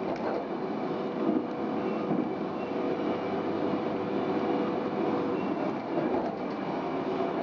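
Stadler GTW 2/6 diesel railcar running, heard from inside: a steady rumble of wheels and running gear with a few brief clacks as it crosses the points. A faint steady whine sounds for a few seconds in the middle.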